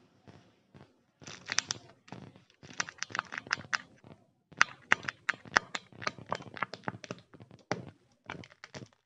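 Candy packaging, such as Kinder Joy egg wrappers, being handled and torn open: crisp crinkling and tearing with many sharp clicks and taps, in clusters broken by short pauses about a second in and past four seconds.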